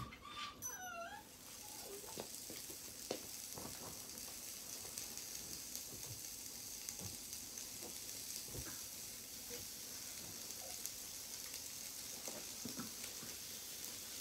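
Slices of raw meat sizzling on a hot electric tabletop grill plate, a steady hiss that starts about a second in as they are laid on, with a few light clicks. A short high gliding call, like a meow, at the very start.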